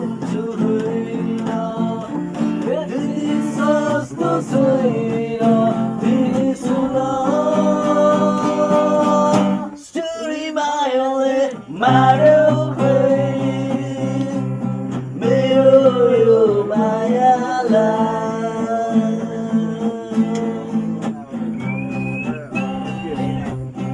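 A song sung to acoustic guitar, the guitar strummed and plucked under a melodic vocal line, with a short break in the middle.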